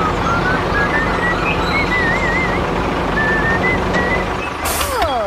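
Steady loud engine-like running noise with a light melody of whistle-like notes stepping upward over it. Near the end comes a short burst and a falling, sliding sound.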